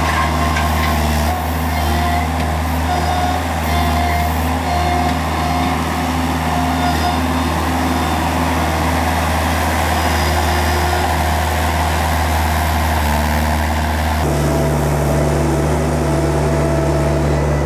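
Avant compact articulated loader's engine running steadily as it drives manure forks into a dung heap, with a faint on-and-off whine over the engine note. About fourteen seconds in, the engine note changes abruptly.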